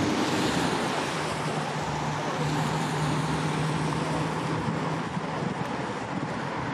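A ship's engine droning steadily under wind noise on the microphone and the wash of water.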